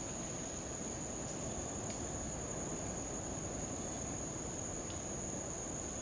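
Rainforest insects calling: a continuous high trill at two pitches, joined after about a second and a half by a faint short chirp repeating about twice a second, over a steady low background hiss.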